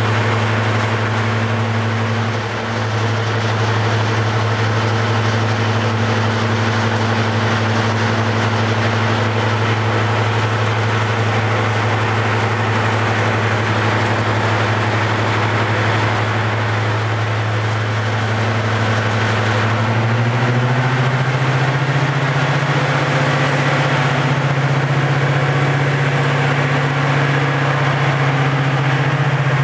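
Class 55 Deltic locomotive's Napier Deltic two-stroke diesel engines idling with a steady low hum. About twenty seconds in the engine note rises to a higher pitch and holds there as the engines are revved up.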